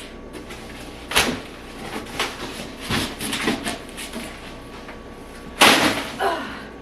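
Heavy, tough cardboard packaging being forced and pried apart by hand: a sharp crack about a second in, a run of smaller creaks and crackles, then a loud crunching tear near the end.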